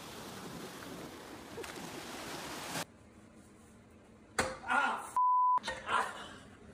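Steady wash of small waves breaking on a beach, cutting off abruptly. Then a sharp knock and a man shouting, his swearing covered by a short censor bleep, a single pure beep, before he shouts again.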